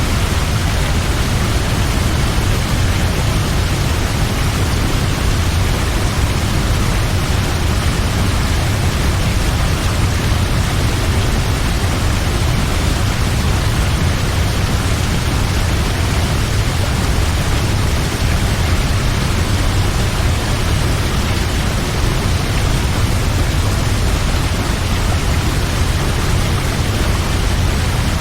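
Large waterfall: a steady, loud rush of falling water with a deep rumble underneath.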